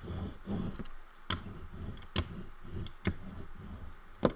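Paper being burnished by hand onto a glued book cover board, pressing it down onto the wet glue: a repeated low rubbing with four sharp knocks about a second apart.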